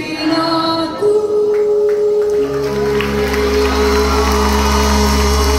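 Live band with a female singer at the end of a song: a long held note rings over a sustained chord, with the bass coming in about two seconds in.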